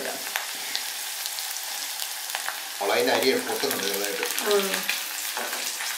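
Chopped green chillies, ginger and garlic frying in hot coconut oil in a stone pot: a steady sizzle, stirred now and then with a wooden spatula.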